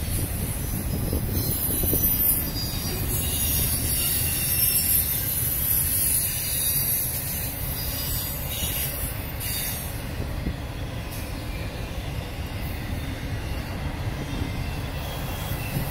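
Freight cars of an intermodal train rolling past, a steady rumble of steel wheels on rail. A high-pitched wheel squeal rides over the rumble and fades out about ten seconds in.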